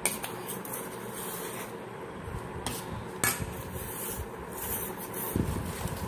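A steel spoon scraping and knocking against a steel bowl and pan as powdered sugar is tipped into melted butter and stirred in, with a few sharp clinks of metal on metal.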